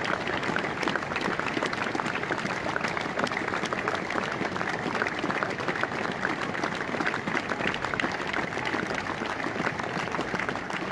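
Crowd applauding steadily, a dense patter of many hands clapping with no break.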